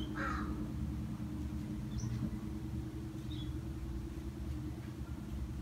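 A steady low mechanical hum, made of several fixed tones, with a few faint, short high chirps.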